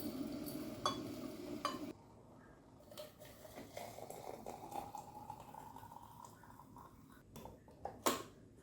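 Hand-cranked wooden coffee grinder grinding beans, stopping abruptly about two seconds in. Light clicks and knocks of handling follow, the loudest one near the end.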